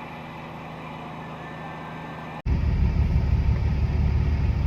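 Steady engine and road drone inside a semi-truck cab. About two and a half seconds in, the sound cuts abruptly to a much louder, deeper rumble.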